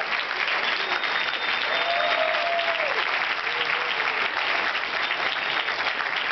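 Large theatre audience applauding steadily, with a couple of voices calling out cheers over the clapping.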